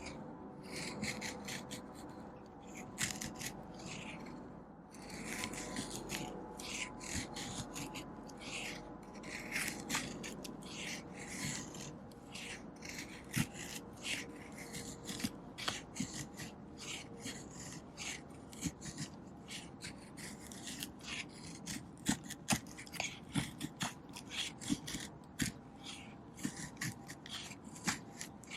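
Knife blade shaving thin curls off a stick of wood to make a feather stick: repeated short scraping strokes, with sharper clicks toward the end.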